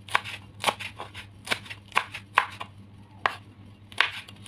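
Kitchen knife slicing chillies on a cutting board: sharp taps of the blade on the board, roughly two a second, in an uneven rhythm.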